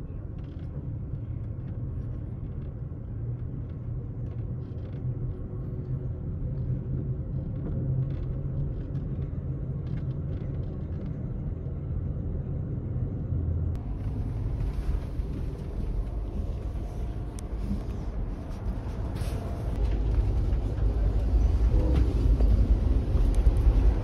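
Amtrak Superliner sleeping car rolling along the track, heard from inside: a steady low rumble of wheels and running gear, growing louder in the last few seconds.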